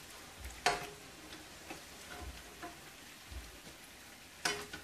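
Hot oil sizzling and crackling in a frying pan as cornmeal-battered fish pieces fry, with scattered small pops. A metal spatula clinks sharply against the pan twice, shortly after the start and again near the end.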